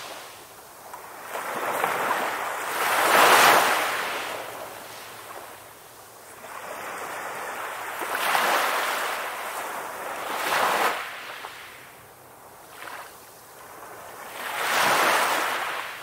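Ocean waves breaking on a beach. The surf rises and falls in about four swells, the loudest about three seconds in.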